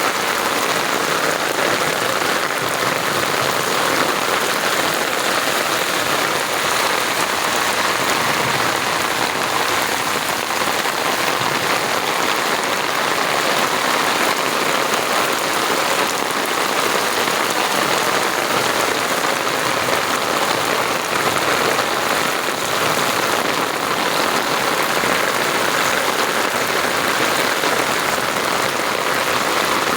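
Steady rain falling and pattering on surfaces, an even unbroken hiss.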